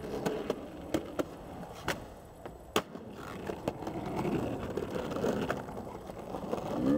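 Skateboard wheels rolling over pavement: a steady rolling rumble with scattered sharp clicks and knocks.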